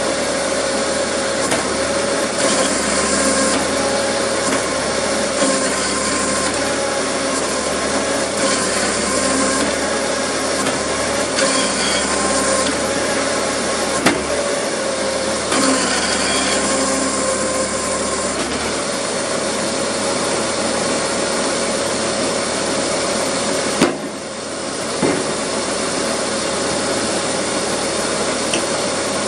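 Homemade PTO-driven log splitter running off a Massey-Harris Model 30 tractor. The geared-up single-stage hydraulic pump and tractor engine run steadily with a steady whine. There are a few sharp knocks, around a quarter and again about four-fifths of the way through, as oak rounds are split and handled.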